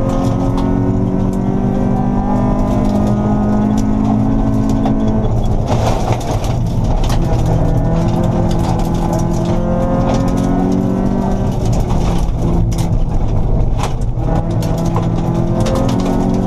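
Honda Civic rally car's engine, heard from inside the cabin, pulling hard at high revs, with the revs falling away twice, about five and twelve seconds in, before climbing again. Sharp ticks and clatters of gravel hit the underside of the car throughout.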